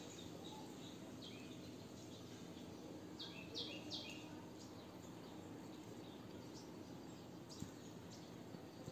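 Faint steady background noise, with a quick run of three or four short high chirps about three and a half seconds in.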